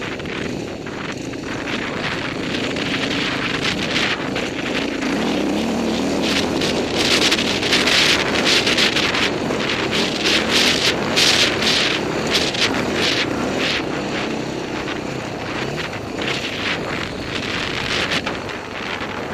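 Dirt bike engine running under throttle on a dirt trail, with heavy wind noise on the microphone. The engine pitch rises about five seconds in, and a run of sharp crackles comes through from about seven to thirteen seconds in.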